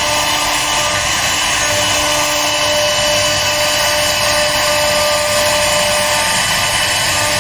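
CNC router spindle running and cutting wood: a steady whine of several fixed pitches over a continuous cutting noise.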